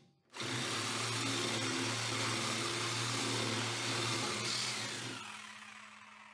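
Reciprocating saw cutting into the steel frame of a trail mower. It runs steadily for about four and a half seconds, then slows and winds down near the end.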